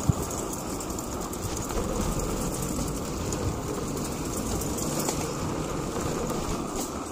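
Steady wind buffeting a handlebar-mounted microphone over the rumble of bicycle tyres rolling on a paved path, with one sharp knock just after the start.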